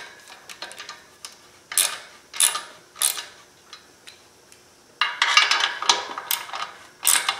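Hand socket ratchet clicking in short runs as clutch pressure plate bolts are brought up snug: a few separate clicks, a pause, then a quicker run of clicking about five seconds in.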